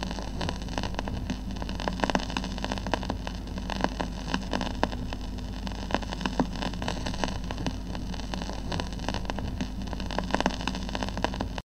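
Vinyl record surface noise: a steady hiss full of irregular crackles and pops, over a low hum.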